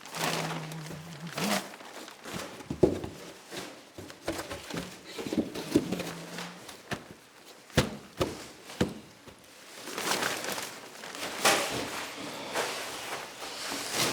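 Work noise from floor insulation being laid: irregular knocks and thuds, scraping and rustling as boards are handled and pushed into place, and footsteps.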